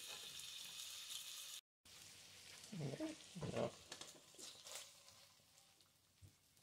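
Butter sizzling softly in a frying pan with fried fish fillets, the burner just switched off. After a brief break, there are a few soft scrapes as a spatula slides the fish out of the pan.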